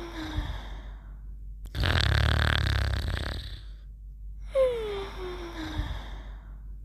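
Snoring in a repeating cycle: a rough, rasping snore about two seconds in, then a whistling tone that slides down in pitch about four and a half seconds in, with the tail of an earlier whistle at the start.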